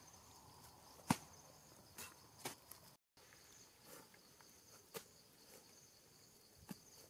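Gloved hands working through the wet, grassy contents of a cow's stomach, giving a few short, soft wet slaps and squelches, the loudest about a second in. A steady high chirring of insects sounds behind them.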